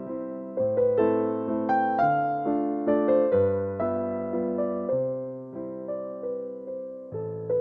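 Background music: a gentle electric piano melody, notes struck about twice a second and fading, over held bass notes.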